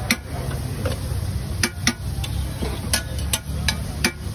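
A metal spatula clinking against a large flat iron tawa (griddle) several times at irregular intervals, sharp metal taps, over a steady low street rumble.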